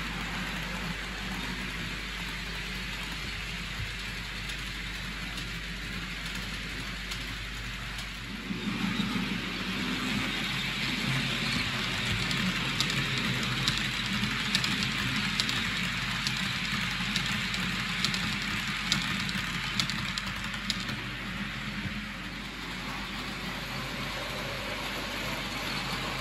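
OO gauge model train running: the metal wheels of a rake of model tanker wagons rolling along the track with a steady hiss and a low hum, louder from about a third of the way in, with scattered sharp clicks in the middle.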